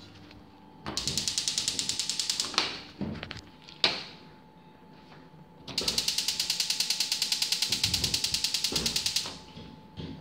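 Gas oven's spark igniter clicking rapidly and evenly, about ten clicks a second, in two runs: a short one about a second in and a longer one of some three seconds in the second half, as the oven burner is being lit. A single sharp knock falls between them.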